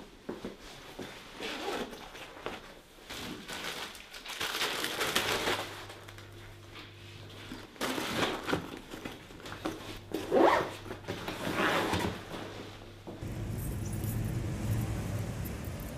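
Backpack being handled and zipped: fabric rustling and several quick zipper strokes. Near the end the sound gives way to a steady low rumble of street traffic.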